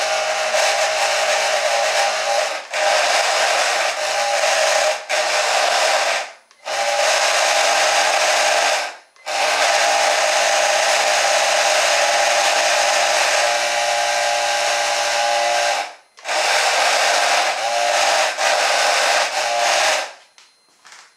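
Two small brushed hair-dryer motors spinning small plastic propellers at full power, a very noisy, steady whirring buzz. It is cut and restarted five times and stops for good near the end. The propellers are too small to push enough air to move the wheeled vehicle properly.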